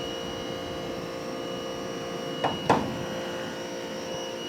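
A machine's steady hum in the workshop, with two sharp knocks a moment apart a little over halfway through.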